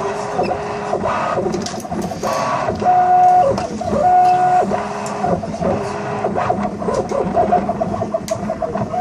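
A 3D printer's stepper motors singing through short moves. Steady whining tones jump to a new pitch every half second or so, and from about six seconds in they break into a rapid stuttering run of tiny moves. Light clicks sound throughout.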